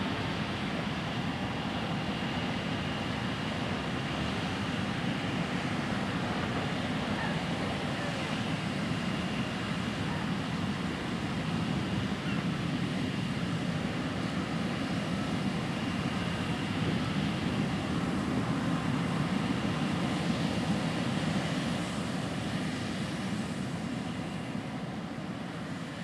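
John Deere S790 combine running steadily while harvesting standing corn: a continuous machinery hum with a faint high whine, fading out near the end.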